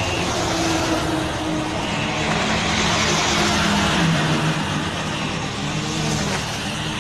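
Road traffic on a wet, slushy road: a truck and trailer drives past close by, with loud tyre hiss on the slush at its loudest midway and an engine hum that wavers in pitch.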